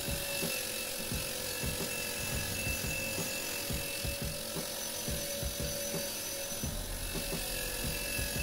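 Bench grinder's wire-brush wheel running with a rear brake caliper pressed against it, scratching grime off the caliper to clean it for painting. A steady motor hum that wavers slightly in pitch under a dense scratchy rasp.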